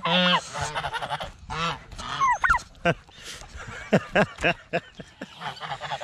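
Domestic geese honking, a string of calls one after another, some gliding up and down in pitch.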